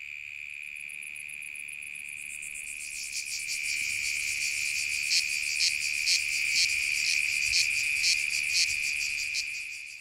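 Cicadas singing in chorus: a steady, high-pitched drone that swells about three seconds in and carries regular pulses about twice a second from about five seconds in, fading near the end.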